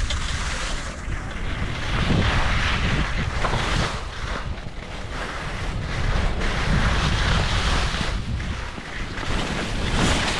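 Wind buffeting the microphone and skis scraping and hissing over firm snow on a fast downhill ski run, swelling in surges as the skier turns.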